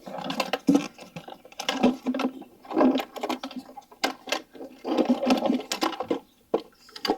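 Hard plastic engine air filter box being handled and opened: bouts of rattling and clicking as the cover is unclipped and the air filter is pulled out.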